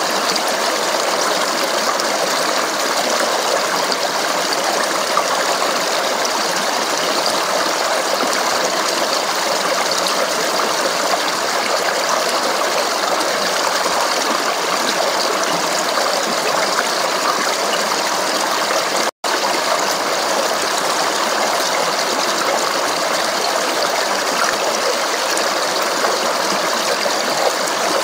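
Stream babbling and rushing over rocks, a steady, unbroken flow that cuts out for a split second about two-thirds of the way through.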